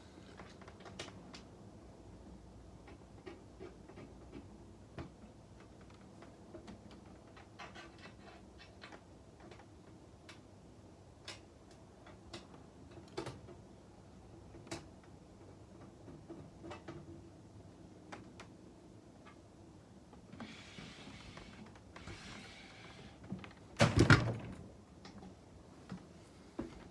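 Scattered light clicks and taps of handling, with a short rustle about three quarters of the way through and one loud knock near the end.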